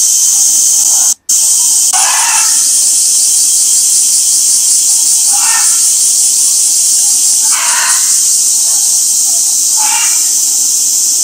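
A chorus of cicadas shrilling loudly and steadily without a break, cut off for an instant about a second in.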